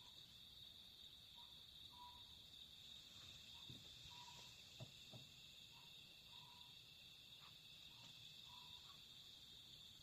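Faint night chorus of crickets: a steady high-pitched trill, with short lower chirps about once a second. A few soft knocks come around the middle.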